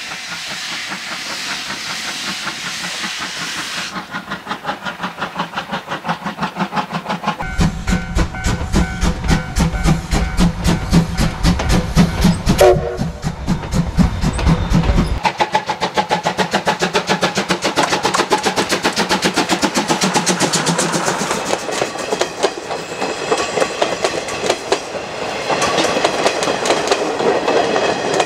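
C12-class steam tank locomotive (C12 66) running with its train: a hiss of steam at first, then a fast, even rhythmic beat of the locomotive and wheels on the rails, heaviest in the middle and lighter toward the end.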